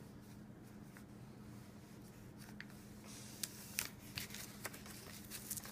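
Faint rustling and creasing of a sheet of paper being folded into a paper airplane by hand, with soft crackles and ticks mostly in the second half. A faint low hum runs underneath.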